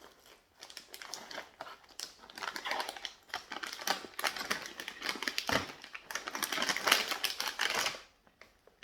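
Plastic snack packet of Kirei Yummy Flakes crinkling and crackling as it is opened and handled, a dense run of irregular crackles that stops shortly before the end.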